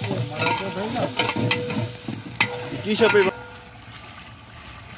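A long steel ladle stirring and scraping through meat curry sizzling in a large aluminium daig as red chili powder is stirred in. Sharp clinks of the ladle against the pot come during the first three seconds, then only a lower sizzle remains.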